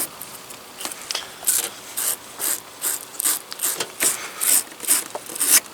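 Wire-brush battery terminal cleaner twisted back and forth on a terminal, a quick series of short scraping strokes about two a second, cleaning off corrosion.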